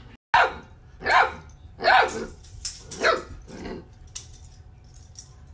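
Great Dane puppy barking: a string of about six sharp barks, a little under a second apart, ending about four seconds in.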